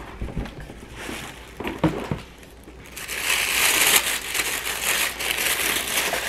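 Plastic packaging and bubble wrap crinkling as they are handled, with a few light knocks at first and steady, louder crinkling from about halfway through.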